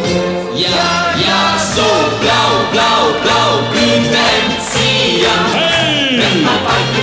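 Band music with group singing over a steady, regular bass line. In the second half, several long, sliding tones fall steeply in pitch.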